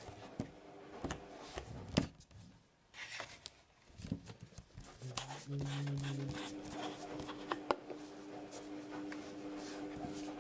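Hands handling a plastic wobbly-head bath gel bottle and pulling its head cap off: scattered plastic clicks and knocks, the loudest about two seconds in and another sharp one near the end. From about halfway a low steady tone hums underneath, changing pitch a couple of times.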